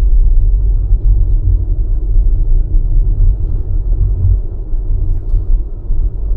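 Steady low road rumble heard inside a Tesla's cabin while it drives at speed: tyre and road noise of an electric car, with no engine note.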